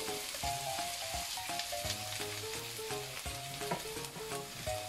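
Cubes of canned meatloaf sizzling in melted butter with garlic, onion and bell pepper in a frying pan. Soft background music with stepping melodic notes plays throughout.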